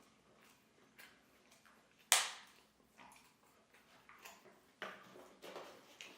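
Close-up eating sounds of a spicy McChicken burger: scattered short clicks and smacks of biting and chewing, with one loud sudden sound about two seconds in that dies away quickly.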